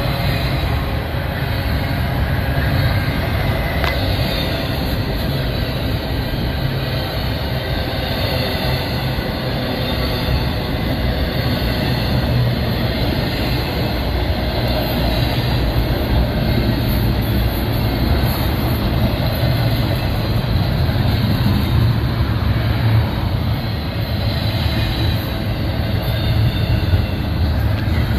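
Double-stack intermodal container train rolling past at trackside: a steady, loud rumble of steel wheels on the rails under the well cars.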